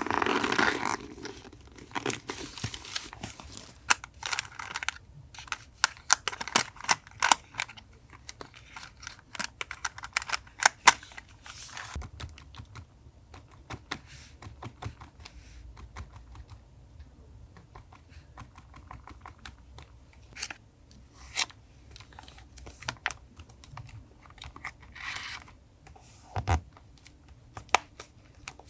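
Paper and stationery being handled for a collage journal: a crinkling rustle of paper at the start, then many small sharp taps and clicks, and a brief rustle again near the end.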